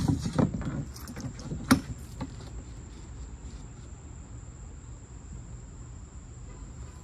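A wooden straightedge knocking against a plywood sheet a few times in the first two seconds as it is laid down. After that a steady, high insect buzz, typical of crickets, carries on over a low outdoor rumble.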